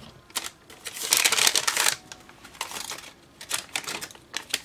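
Paper rustling and sliding as hands handle a kraft paper envelope and card stock, with one longer rustle about a second in and several short light clicks and taps.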